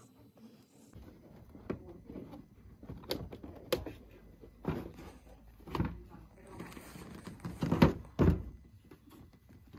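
Hollow plastic knocks and thunks as a Ford Fiesta MK6 headlight unit is set back into the front end and pressed into its mounts. There are about seven separate knocks, and the loudest two come close together near the end.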